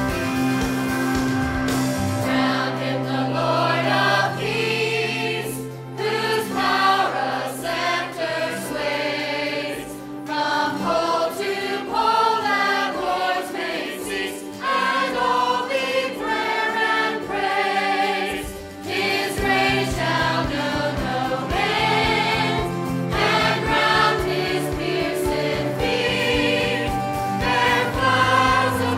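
Church choir singing a gospel song with accompaniment, a woman's voice leading on a handheld microphone.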